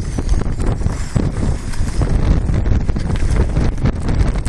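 Strong wind buffeting the microphone, a loud, gusty rush with irregular thumps.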